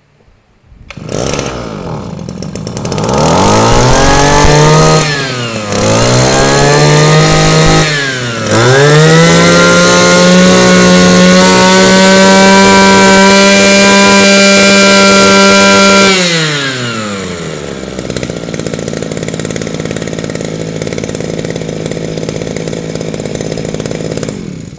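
Shindaiwa S250 25cc two-stroke brush cutter engine pull-started. It catches about a second in, is revved up and dropped back twice, then held at high revs for several seconds before falling to a steady idle, and it is switched off right at the end. It revs very high and picks up fast, the sign of a strong engine in good order.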